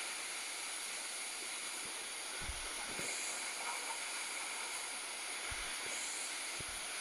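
Steady hiss of sea surf washing over the rocks, with a few brief low thumps.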